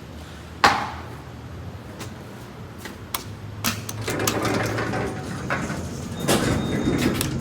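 A sharp knock with a short ring, then a steady low hum joins scattered clicks and stretches of sliding, rumbling noise, typical of a hydraulic elevator being called and its doors moving.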